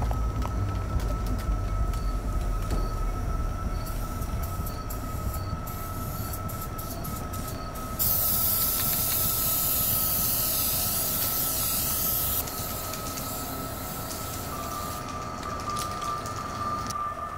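Aerosol spray-paint can hissing loudly for about four seconds in the middle, over a steady hum with a constant high whine, with scattered clicks in the first half.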